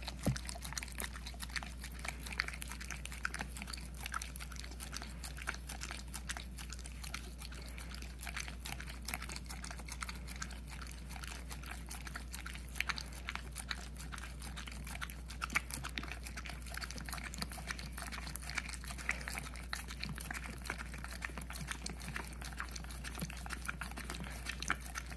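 Young boxer dog licking peanut butter off a paper plate: a steady run of wet licks and mouth smacks.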